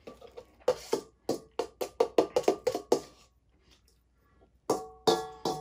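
Metal spoon clinking and scraping against a stainless steel mixing bowl, each strike leaving a short ringing tone. There is a quick run of clinks at about four a second, a pause of over a second, then another run near the end.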